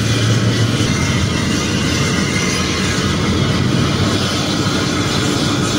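Hino bus engine and exhaust running under load with a steady, loud low drone, heard from inside a car following close behind, mixed with road noise.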